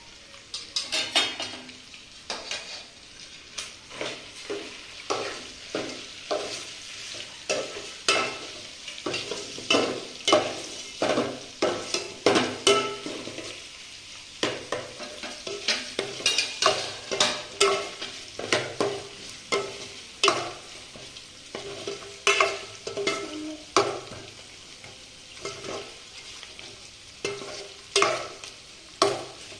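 Steel spoon stirring and scraping fried chicken pieces around a metal pot, in repeated irregular strokes about one or two a second.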